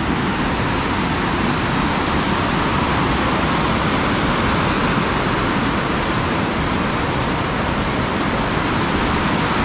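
Loud, steady rush of a waterfall, white water pouring down rocky steps into a stream.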